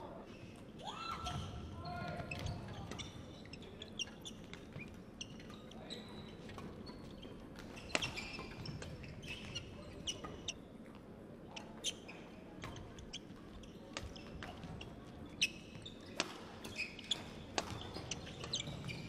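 Badminton play on a wooden court in a large hall: sharp racket hits on the shuttlecock, some loud and close, others fainter from neighbouring courts, with shoe squeaks and footsteps. One short rising shoe squeak about a second in.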